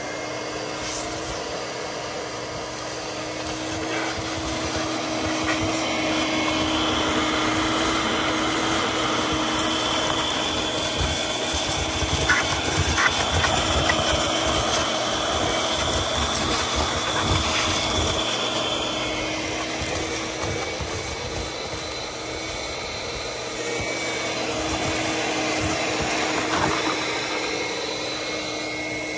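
Wet/dry shop vacuum running steadily, its hose sucking ash and dust out of a cinder-block fire pit, with a few sharp clicks about halfway through.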